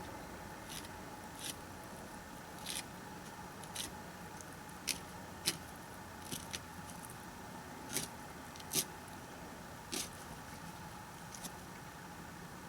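Knife filleting a catfish, cutting along the backbone and rib cage: a dozen or so short, irregular scrapes and clicks over a low steady background.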